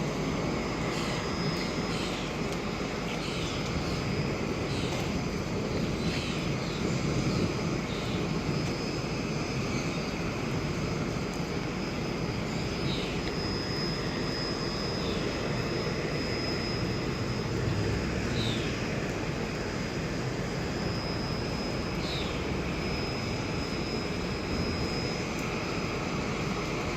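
Steady rushing noise of a jet airliner's engines mixed with heavy rain. A thin high whine comes in about halfway through.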